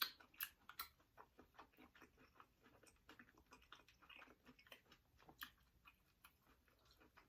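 Faint chewing and mouth clicks of a person eating cold spicy seafood boil, in quick irregular clicks.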